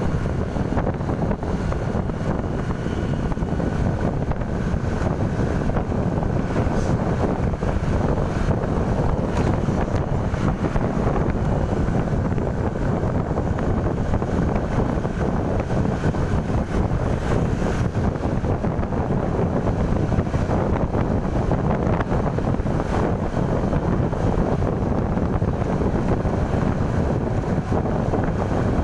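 Steady wind noise buffeting the microphone over a continuous low vehicle rumble, with no distinct horn blasts.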